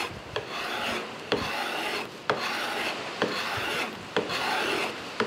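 Steel card scraper worked in repeated strokes along a strip of wood, lifting curled shavings: a rasping scrape about once a second, each stroke opening with a sharp tick.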